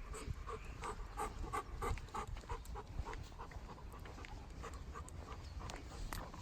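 Golden retriever panting, a quick, even rhythm of breaths that grows fainter about halfway through.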